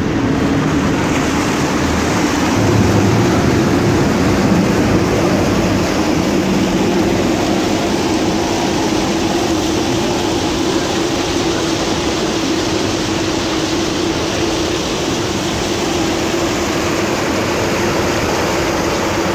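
Cruise boat's engine running steadily at speed, a constant drone with the rush of churned water and wake beneath it.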